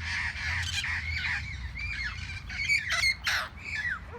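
A flock of wild parrots in a tree squawking, many overlapping short calls that each drop in pitch, with the loudest calls about three seconds in.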